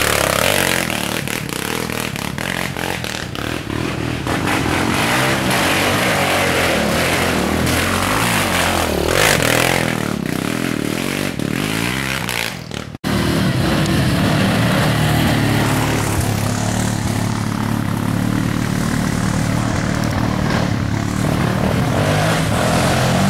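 ATV engines running and revving hard, the pitch rising and falling in the first half, then a steadier drone after the sound drops out briefly about halfway through.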